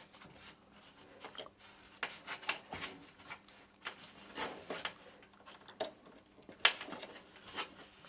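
Hands handling cables and connectors inside a desktop PC case: scattered small plastic clicks, taps and rubs, with one sharper click about two-thirds of the way in.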